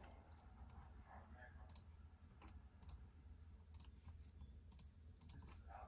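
Faint computer mouse clicks, a handful irregularly spaced about a second apart, over a steady low hum.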